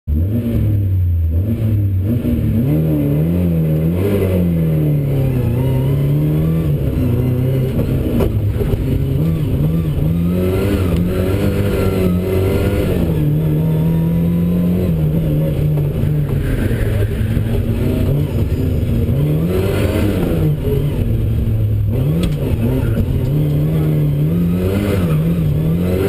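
Lada rally car's four-cylinder engine heard from inside the stripped, caged cabin, revving up and down repeatedly, its pitch climbing and dropping every couple of seconds with short steady stretches between.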